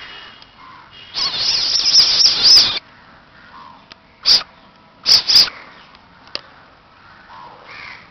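A baby civet hissing: one long hiss lasting over a second, then three short, sharp hisses.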